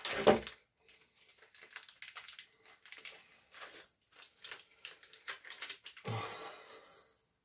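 Small plastic bag of screws being cut open and handled: irregular crinkling and rustling with light clicks. There is a louder handling noise right at the start and a longer rustle about six seconds in, as the screws are tipped out of the bag into a hand.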